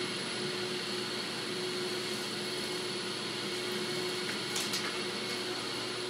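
Commercial three-motor central vacuum system running, its metal wand inlet sucking air and pet hair off the floor: a steady rush of air with a constant whine, and a couple of faint ticks about halfway through.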